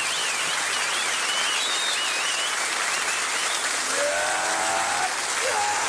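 Studio audience applauding and cheering, with high wavering calls in the first couple of seconds and a voice calling out about four seconds in.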